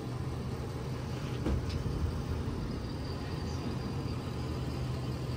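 Heavy-duty pickup truck engine idling steadily, with a couple of faint clicks about a second and a half in.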